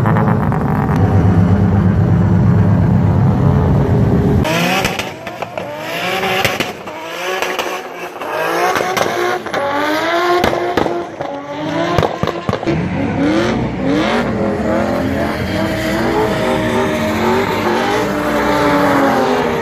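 A steady low drone for about four seconds, then drift cars on track: engines revving hard in repeated rising sweeps broken by gear changes and lifts, with some tyre squeal.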